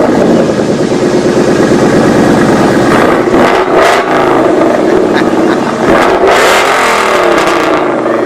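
Car engine running loudly and revved twice, the pitch climbing and falling back each time.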